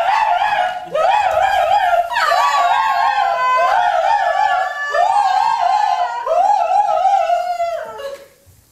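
A high voice singing wordless phrases about a second long. Each phrase starts with an upward slide and wobbles widely in pitch. It fades out near the end.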